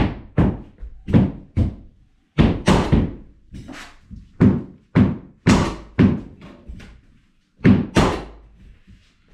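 Repeated hammer blows: about a dozen sharp thuds, one or two a second, with short pauses about two seconds in and around seven seconds.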